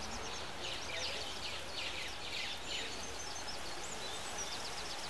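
Outdoor ambience of birds chirping: short high chirps repeating throughout, over a steady soft background hiss.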